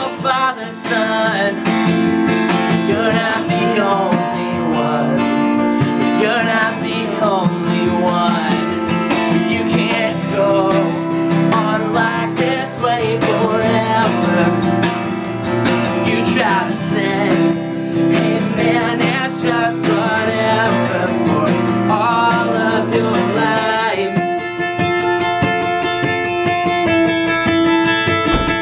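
Acoustic guitar strummed with a man singing over it. The singing stops about 24 seconds in and the guitar carries on alone.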